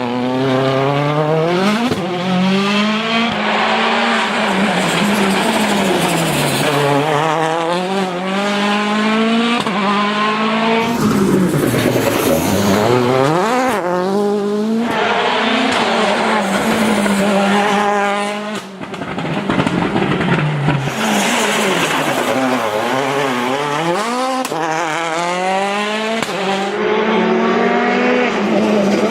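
Citroën DS3 WRC rally car's 1.6-litre turbocharged four-cylinder engine being driven hard, its pitch repeatedly rising under acceleration and falling away as the car slows, over and over for the whole stretch.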